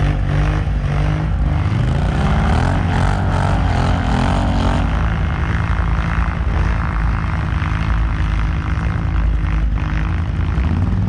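ATV (quad bike) engine running; it revs up about two seconds in, then holds a steady pitch.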